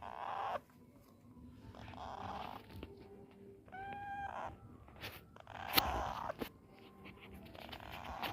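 Baby parrot making short raspy calls in repeated bursts, with one brief clear pitched call about four seconds in.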